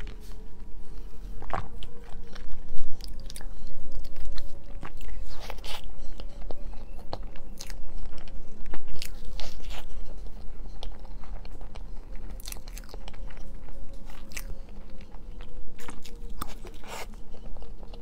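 Close-miked biting and wet chewing of soft layered chocolate crepe cake, with many small sharp mouth clicks.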